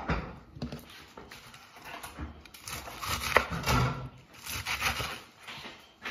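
Chef's knife chopping crisp lettuce on a wooden cutting board: irregular crunching cuts and knocks of the blade against the board, with one sharper click about halfway through.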